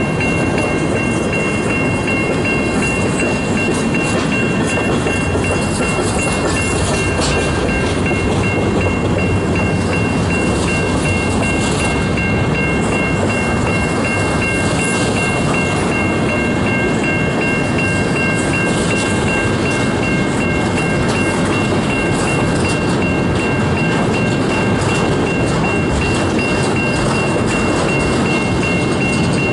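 A long freight train's cars rolling steadily past a grade crossing: a continuous rumble of wheels on rail, with a few steady high-pitched tones over it.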